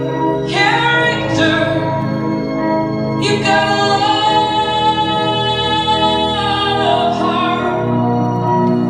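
Recorded song with a woman singing, including one long held note in the middle.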